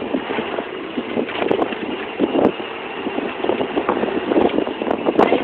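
Golf cart driving, its running noise mixed with wind buffeting the microphone in uneven gusts.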